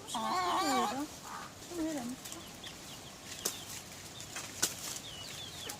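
Chickens clucking, with short high chirps and a couple of sharp clicks.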